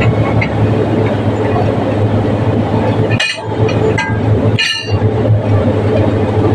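A steady low engine hum, like a diesel idling, with two sharp metallic clinks from a wrench on the truck's wheel lug nuts about three and almost five seconds in.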